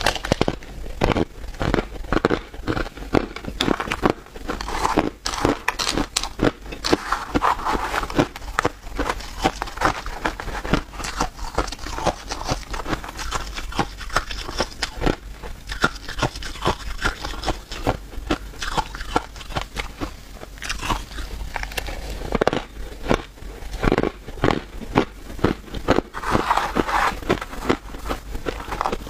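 Close-up crunching and chewing of a mouthful of crushed ice with small ice cubes, bitten down in rapid crackling crunches.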